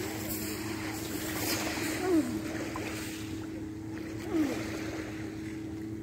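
Small sea waves lapping over a pebble shore, with a steady low droning hum underneath. Two short falling calls stand out, about two seconds apart.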